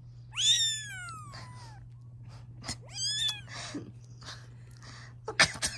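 Very young kitten mewing: a loud, high-pitched mew that falls in pitch about half a second in, and a fainter one about three seconds in. Rustling and a few sharp knocks near the end.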